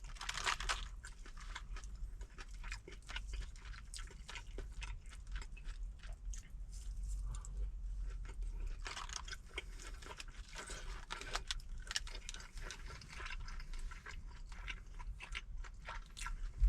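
A person chewing crunchy food close to the microphone, with many small irregular crunches and wet mouth clicks.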